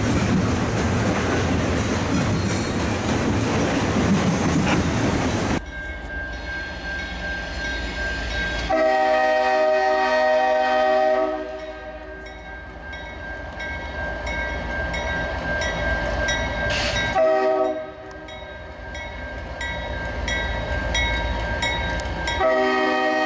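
Freight cars rolling past with steady wheel and rail noise, which cuts off abruptly about five seconds in. Then an approaching diesel locomotive sounds its multi-chime air horn: a long blast, a short one several seconds later, and another long one near the end, as for a grade crossing. A crossing bell rings steadily underneath.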